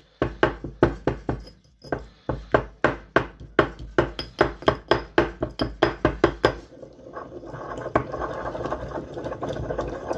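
Stone pestle pounding in a stone mortar: a steady run of knocks, about three to four a second, with a short break near the start. After about seven seconds it turns into continuous grinding as the pestle is rubbed round the bowl.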